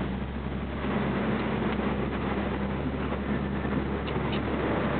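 Steady low motor hum over a constant hiss, with two faint clicks about four seconds in.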